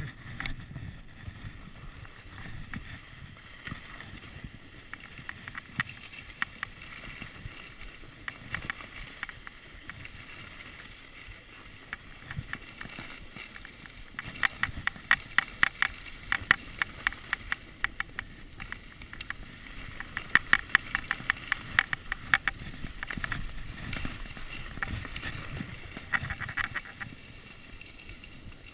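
Ski bike's ski sliding over snow with a steady swishing, broken in the second half by three stretches of rapid clicking and rattling.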